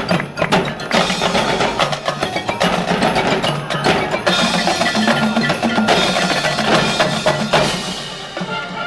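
Marching band music with a busy percussion passage: drums and mallet instruments such as marimba, xylophone and chimes striking rapidly over sustained lower pitched notes.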